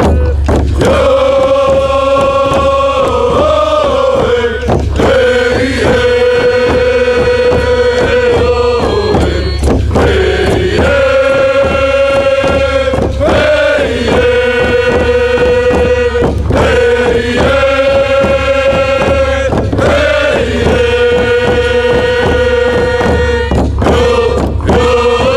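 Music: a chanted or sung line holding long, steady notes, each a few seconds long with short pitch dips between, over a steady drum beat and bass.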